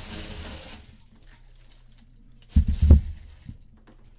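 Plastic and cardboard packaging crinkling for about the first second as a boxed football helmet is unpacked, then a cluster of dull thumps a little past the middle as the box or helmet is handled.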